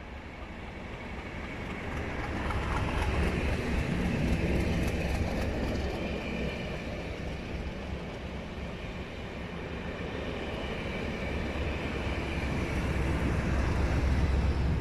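Diesel-hauled test train passing with a deep engine rumble and wheels running on the rails. It is louder about three to five seconds in as the lead locomotive goes by, and loudest near the end as the rear locomotive, Class 37 No. 37218 with its English Electric V12 diesel, passes close.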